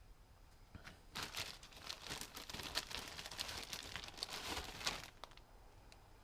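Plastic wrapping crinkling and rustling as it is handled, an irregular crackle starting about a second in and dying away near the end.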